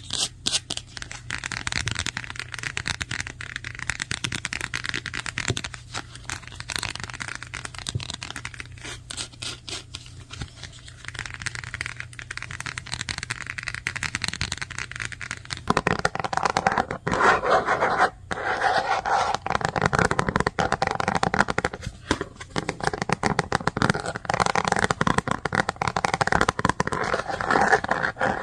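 Fast typing on a computer keyboard: a rapid, continuous stream of key clicks. About halfway through it switches abruptly to a louder, fuller clatter.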